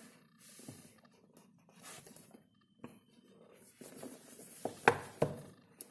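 Cardboard smartphone box being handled and turned over: soft rustling and scraping of the card, with two sharp taps close together about five seconds in.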